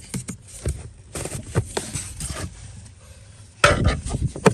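Clicks, taps and knocks of a flathead screwdriver and hard plastic as the blower motor is levered past its locking tab and twisted out of its housing, with a louder cluster of knocks near the end.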